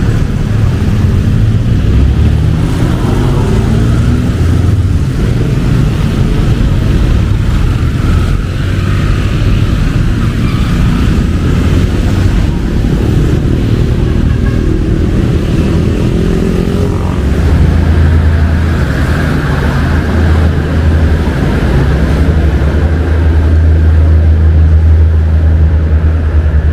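Loud motor-vehicle engines running close by, typical of motorcycles and cars in street traffic. A steady, low engine drone grows louder in the last third.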